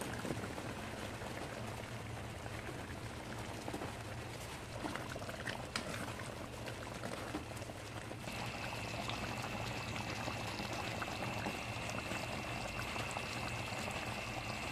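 Chicken afritada stew simmering and bubbling in a wok, with a few light knocks about five to six seconds in. A faint steady high whine joins about eight seconds in.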